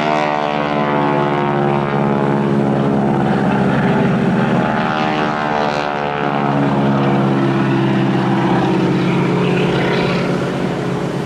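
Boeing Stearman biplanes' radial engines and propellers running in a steady, loud drone during a display pass, the pitch shifting slightly as they fly by.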